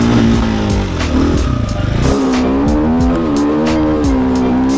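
Enduro dirt bike engine revving hard under load on a loose sand climb, its pitch rising and falling with the throttle. The engine eases off for a moment about a second and a half in, then picks up again.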